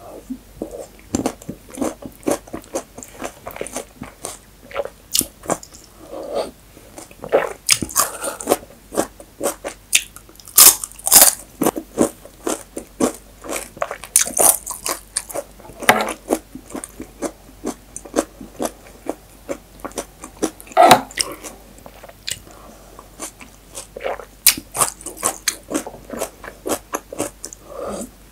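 Close-miked chewing and crunching as spoonfuls of abdoogh khiar are eaten: cold yogurt-and-cucumber soup with dried bread, walnuts, radish and herbs. Irregular crisp crunches come thick and fast, a few of them much louder than the rest.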